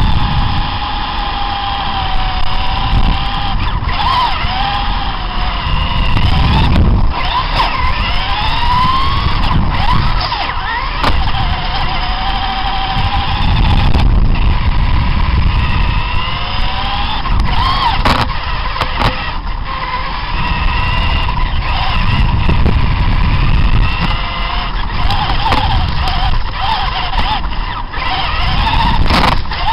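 Radio-controlled monster trucks driving, their motors whining and repeatedly rising and falling in pitch with the throttle, over a low rumble.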